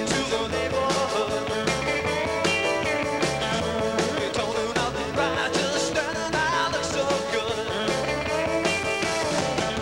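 Rock band playing a song live: drum kit, electric bass, electric guitar and synthesizer keyboards, with a voice singing.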